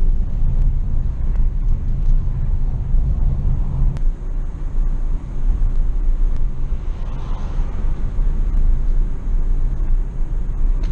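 Chevrolet Onix 1.4's four-cylinder engine and tyre rumble heard from inside the cabin while driving at steady speed, with a single sharp click about four seconds in.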